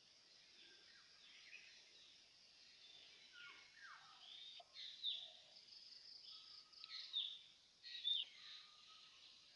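Several birds calling, mostly short whistled notes that sweep quickly downward. The calls sound over a steady high hiss of insects and are loudest about five, seven and eight seconds in.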